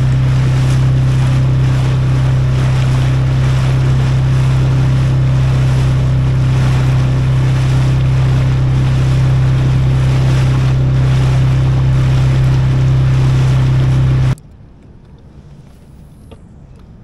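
An inflatable boat's outboard motor running at a steady speed while under way, with wind buffeting the microphone and water rushing past. The sound cuts off abruptly about fourteen seconds in.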